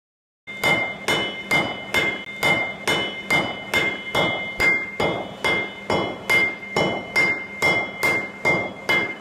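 Blacksmith's hammer striking metal on an anvil in a steady rhythm of a little over two blows a second, each blow ringing. It starts about half a second in.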